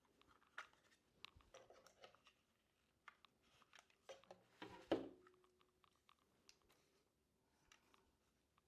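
Faint clicks, taps and scrapes of small plastic and aluminium camera-accessory parts being handled and fitted together, with one louder knock about five seconds in.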